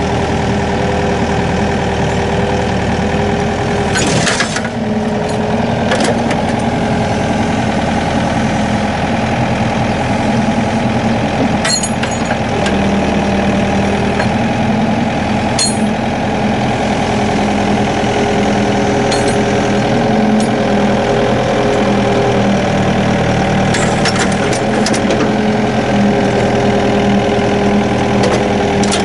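Yanmar hydraulic excavator's diesel engine running steadily while its arm works, with steady hum tones that shift as the load changes. A few sharp knocks come as the crawler track is hauled over the snow groomer's wheels, one at about 4 s and others near the middle and toward the end.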